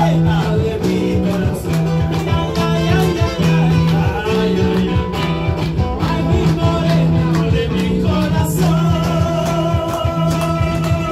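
Live Latin pop song sung in Spanish by two male voices. An acoustic guitar and an electric guitar through a small Marshall amplifier play a steady strummed rhythm behind them.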